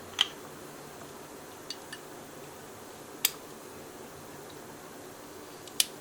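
Kitchen handling sounds: three sharp clacks, the first near the start, one in the middle and one near the end, with a couple of faint ticks between, over a steady low background noise.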